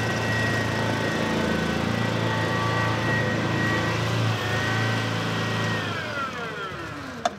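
Small tracked utility vehicle driving past, its engine running steadily with a whine from the drive over it. Over the last second or so the whine slides down in pitch and the sound fades, and a sharp click comes just before the end.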